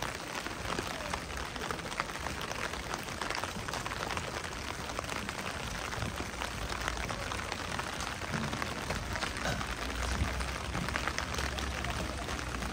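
Steady rain, a dense patter of many small drops, with a low rumble underneath that grows a little stronger about eight seconds in.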